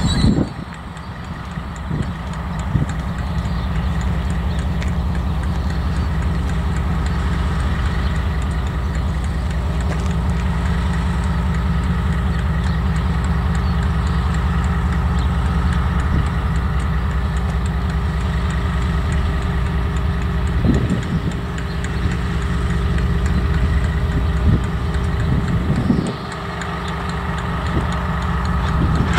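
KiwiRail DL-class diesel-electric locomotive, its MTU V20 diesel engine running steadily at low power as the train creeps along, a low even drone with a higher steady tone above it. A few brief knocks come about two seconds in and twice near the end.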